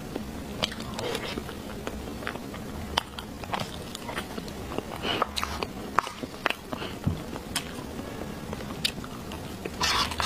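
Close-miked eating sounds: scattered sharp mouth clicks and smacks while chewing soft chocolate mousse cake, with a spoon scraping through the cake and crumbs on the plate. A louder noisy burst comes near the end.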